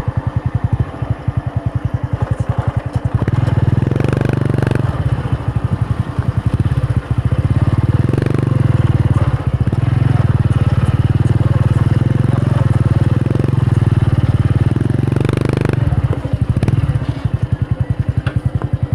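A small engine running with a fast, even firing beat. About three seconds in its revs rise, with several throttle blips, and it drops back to idle near the end.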